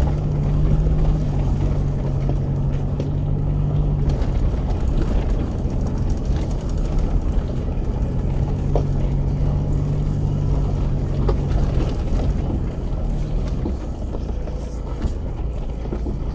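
A vehicle's engine running steadily under a low road rumble while driving, its pitched drone dropping out about four seconds in, returning around eight seconds and fading again near twelve.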